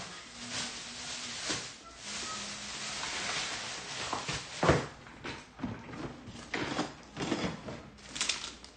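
Handling and rummaging noises: a series of knocks and clicks with a stretch of rustling, the loudest knock about halfway through.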